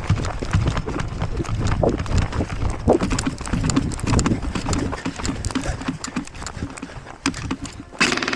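Running footsteps on rough ground, an irregular patter of thuds with gear rattling and the body-worn camera jostling. Music starts suddenly just before the end.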